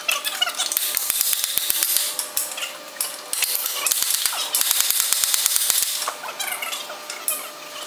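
Rapid metallic clicking and rattling from the brake cylinder rigging as it hangs on the crane over the locomotive truck frame. It comes in two runs of about three seconds each, with a short break between.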